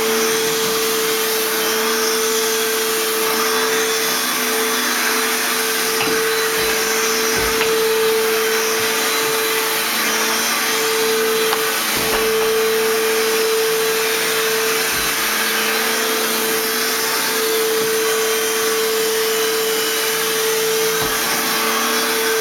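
ProTeam commercial backpack vacuum running steadily as its floor tool is pushed over carpet, with a constant motor tone over a rushing hiss of suction. A few dull knocks along the way.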